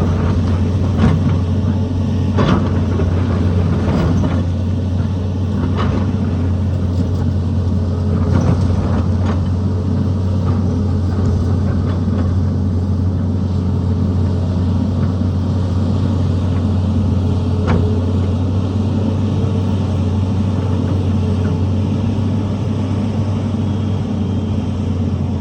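Tata Hitachi excavator's diesel engine running steadily, with several sharp knocks scattered through, mostly in the first few seconds and one more later on.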